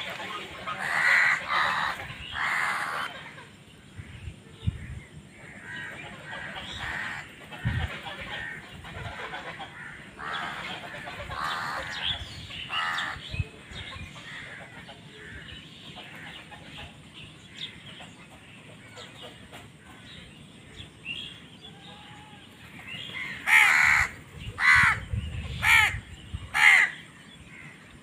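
House crows cawing. Harsh caws come loud in the first few seconds and are fainter and scattered after that, with a quieter stretch in the middle. Near the end come four loud caws about a second apart.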